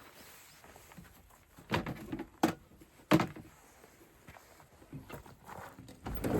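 Footsteps and rustling through wetland vegetation: a few short knocks or crunches, then a louder rustle building near the end.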